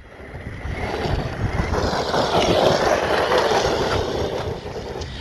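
Large electric RC truck driving past over dirt, its tires and drivetrain hissing and rattling as it comes near and moves away. The sound swells to its loudest mid-way and then fades.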